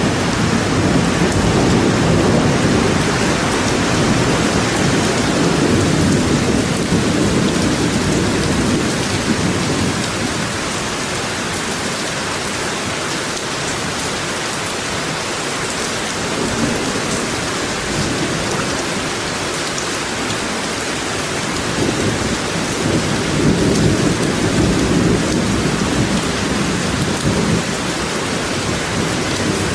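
Steady heavy rain, with low rolling rumbles of thunder that swell over the first third and again late on.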